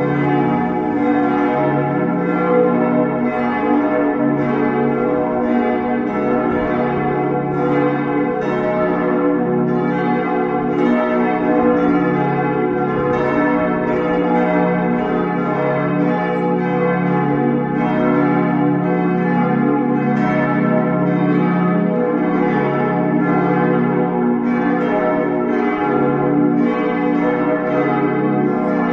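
Full peal of church bells: all the bells ringing together in a continuous, overlapping jangle of strikes.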